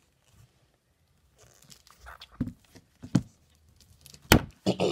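A book being handled close to the microphone: rustling starting about a second and a half in, with several knocks, the sharpest near the end.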